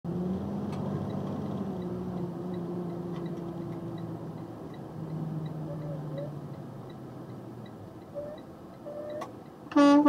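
Box truck's engine running as the truck rolls slowly, with a faint regular ticking about twice a second. Near the end a truck air horn starts a loud, steady blast.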